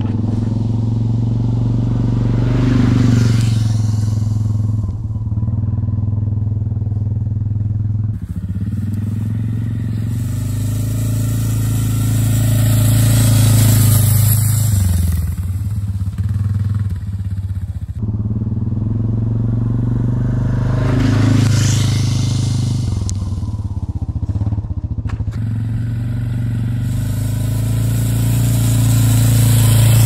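Quad bike engine running as it drives by over rough grass, swelling louder each time it comes close, with the sound jumping abruptly a few times.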